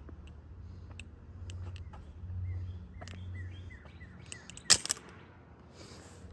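Balisong butterfly knife being flipped: scattered light clicks of the handles and pivot, with one sharp, loud clack about three-quarters of the way through. Just before the clack comes a quick run of short high chirps.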